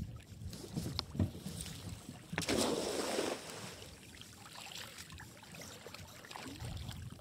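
A weighted cast net lands on the river with a brief splash about two and a half seconds in, after a couple of light clicks. Faint water and wind sounds follow.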